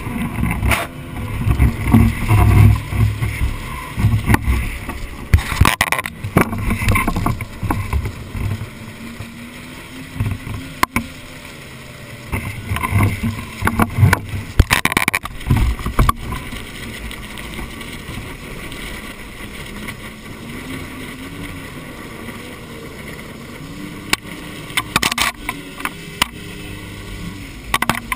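Outboard motor driving a small flat-bottom tunnel-hull skiff, its pitch rising and falling as the throttle changes, with water slapping against the bow and a few louder splashes.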